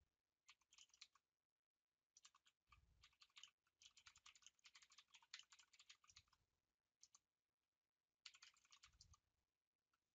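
Faint computer keyboard typing: a short burst of keystrokes, then a run of rapid typing lasting several seconds, a single keystroke, and another short burst near the end, with a few dull low knocks among the keys.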